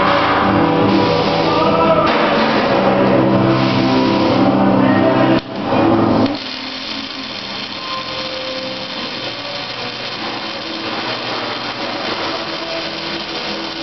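Music with singing for about six seconds, then cutting off. A welding arc runs steadily as an even, noisy hiss for the rest of the time.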